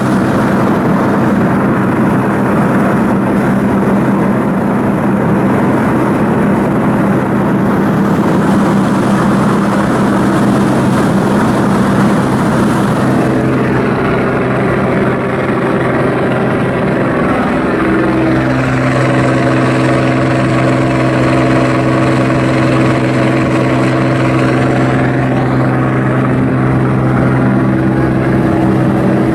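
Ship's diesel machinery running steadily with a loud low hum; about halfway through the hum settles into a different, steadier set of tones.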